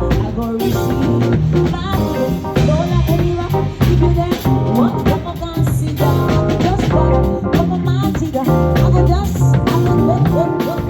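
A live band playing an upbeat groove, with a drum kit keeping a steady beat under a stepping bass line and guitar.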